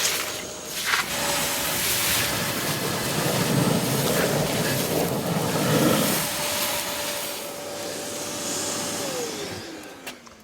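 Kärcher WD wet-and-dry vacuum running with a steady motor whine while sucking up wet sludge, with a louder rushing, slurping stretch in the middle. Near the end it is switched off and the whine falls in pitch as the motor spins down.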